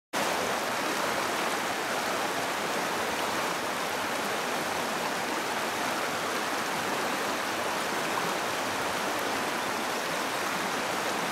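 Shallow river rushing steadily over stones.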